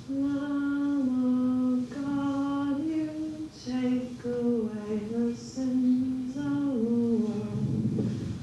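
A woman singing a slow melody unaccompanied, holding each note for about half a second to a second before stepping to the next.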